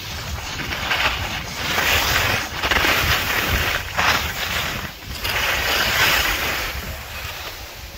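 Skis or board edges hissing and scraping over groomed, packed snow while sliding downhill, swelling and fading several times. Low wind rumble on the microphone.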